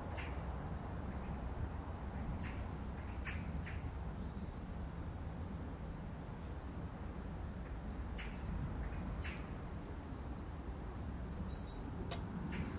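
Small birds chirping, short high calls a few seconds apart, with a few sharp pops and crackles from a wood campfire over a steady low outdoor rumble.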